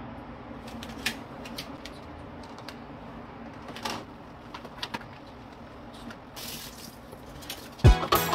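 Light clicks and knocks of plastic food containers being handled and set down on a stainless steel dish rack over a sink, over a low steady hum, with a brief rustle about six and a half seconds in as rubber gloves are pulled on. Music with a thumping bass beat starts just before the end.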